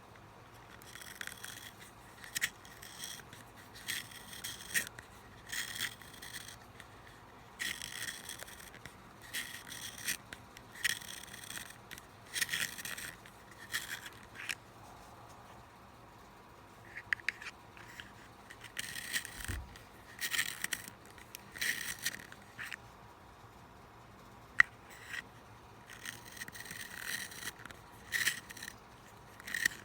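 A #2 Ticonderoga pencil being twisted in a hand-held Blackwing Long Point sharpener, giving a run of short scraping strokes as the blade shaves the wood. The strokes come in bursts with a couple of pauses, and there is one sharp click late on.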